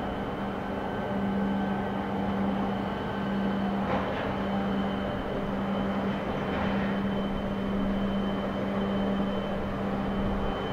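Steady mechanical hum of container-port machinery: a constant low drone with a faint high whine over a general rumble. Two brief louder swells come about four and seven seconds in.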